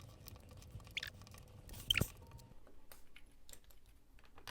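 Small plastic Lego pieces clicking and rattling as they are handled and pressed together, with a sharper click about two seconds in.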